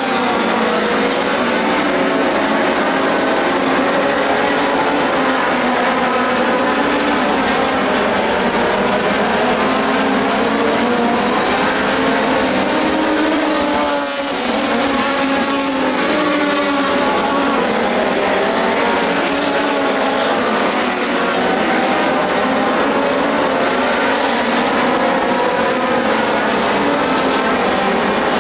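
A field of dirt-track race cars running laps together, many engines overlapping and rising and falling in pitch as the cars come through the turns and down the straights.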